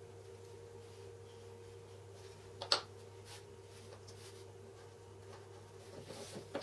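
Quiet small-object handling while marking wood with a mechanical pencil: faint scratching and light taps, with a sharp tap about two and a half seconds in and another right at the end, over a steady low hum.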